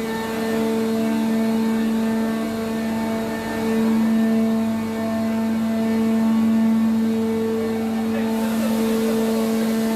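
Heavy construction machinery running with a steady, unchanging drone. Faint voices come in near the end.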